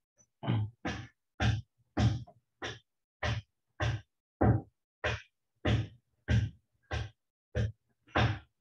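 A steady series of sharp knocks or thumps, about fourteen in a row at an even pace of roughly three every two seconds.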